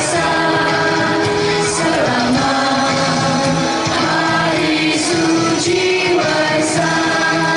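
Mixed choir of women's and men's voices singing together in harmony, holding long sustained notes.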